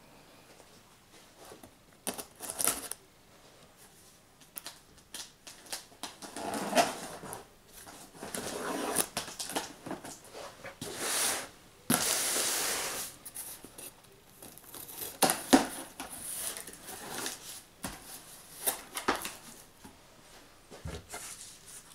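A Bowie knife slitting the packing tape on a cardboard box: scattered scraping, ripping and tapping noises with a longer rip around twelve seconds in, then cardboard flaps rustling as the box is opened.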